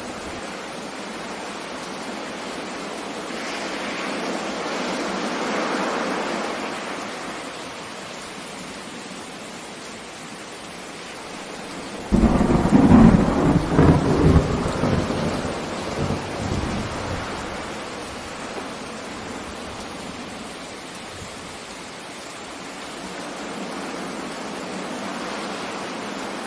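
Steady heavy rain, with a loud clap of thunder breaking in suddenly about halfway through and rumbling for a few seconds before it fades back under the rain.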